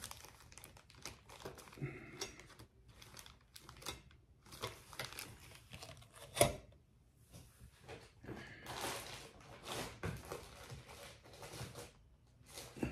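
Surgical instruments being rummaged through by hand: irregular light clicks and knocks of the tools being moved, with some rustling, and one sharp click about six and a half seconds in.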